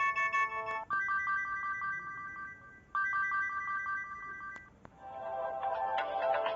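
LG GB115 mobile phone's built-in polyphonic ringtones. One tune ends about a second in, a short bright phrase of repeated notes plays twice, and a fuller tune starts near the end.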